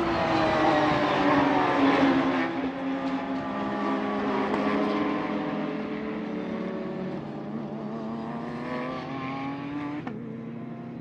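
Race car engines running at track speed, several engine notes together, their pitch falling gradually at first and then holding steady. The sound changes abruptly about ten seconds in.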